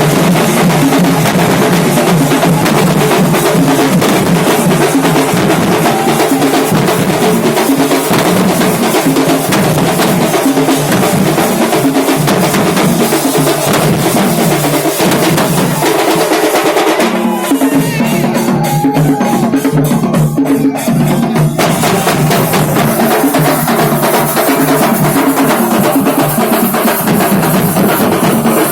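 Loud, fast drumming in a driving kuthu beat, dense rapid strokes with no letup. About two-thirds of the way through the sharp top of the sound drops out for a few seconds, then comes back in full.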